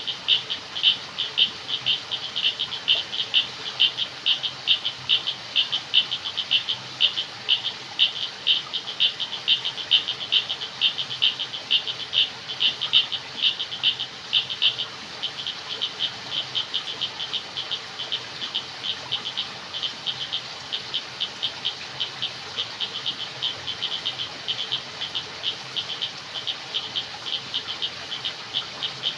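Night chorus of frogs calling in rapid, repeated pulsed notes, louder in the first half and softer from about halfway through.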